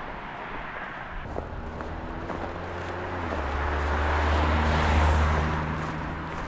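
A motor vehicle going by on a nearby road: its engine hum grows louder to a peak about five seconds in, drops slightly in pitch and fades.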